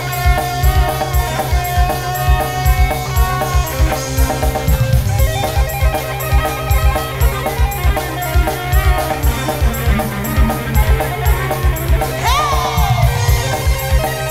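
Live band music played through a stage sound system, with a steady, quick drum beat under sustained keyboard and guitar tones.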